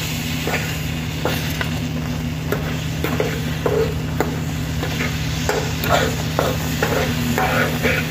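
Metal fork scraping and clicking against a small pan as it breaks up and stirs eggs in simmering water. Underneath is a steady hiss of bubbling water and a low hum. The clicks come thicker in the second half.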